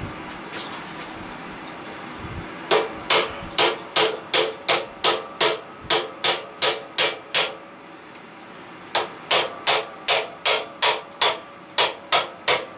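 A small hand hammer tapping a tool held against an air-conditioner A-frame coil, metal on metal with a short ringing note after each blow. The blows come steadily at about three a second in two runs, the second starting about nine seconds in after a short pause.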